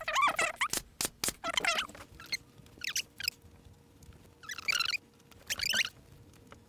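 Crinkling rustle of a black synthetic dust-cover fabric being spread and smoothed by hand over the bottom of an ottoman, in several short bursts, with a few sharp clicks near the start.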